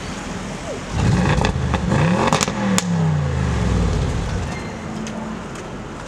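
Audi RS7's twin-turbo V8 revving once: the revs climb quickly, a couple of sharp exhaust crackles sound at the peak, then the revs fall back and settle.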